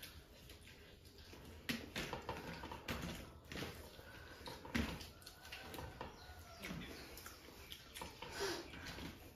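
Faint, wet eating sounds: a hand squishing and scooping curry-soaked rice on a metal platter, with chewing and lip smacks, and a few sharp clicks scattered through.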